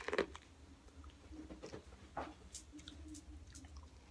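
A person biting and chewing corn on the cob dressed with mayonnaise and cheese: scattered soft, wet mouth clicks and smacks over a low steady hum.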